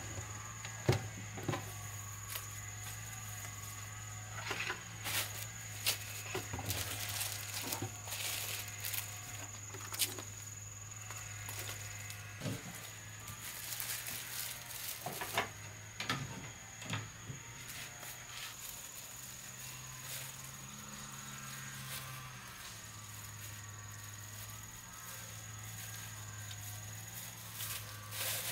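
Scattered knocks and clatter of bowls, food and wooden cupboard parts being handled, with rustling of plastic bags. Under it runs a steady high insect drone with small breaks, and a low steady hum.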